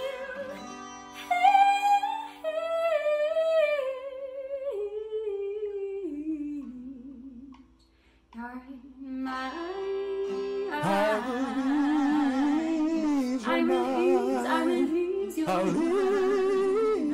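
A woman singing a slow song to acoustic guitar accompaniment. The music stops briefly about halfway through, then the singing comes back fuller and louder.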